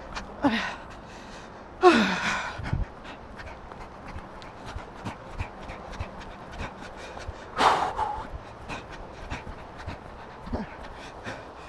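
A runner breathing hard under heavy exertion while running, with three short grunts falling in pitch: about half a second in, the loudest about two seconds in, and one near eight seconds.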